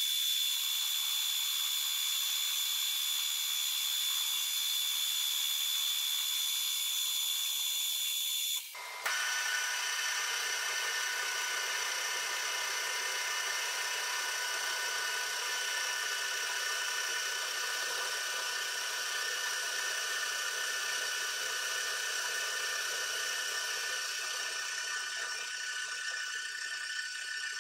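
Vertical milling machine's end mill cutting a square on a round bar held in a vise, in sped-up playback, so the cut comes out as a steady high whine. About nine seconds in it breaks off briefly and resumes lower in pitch as the speed-up drops from seven-fold to three-fold.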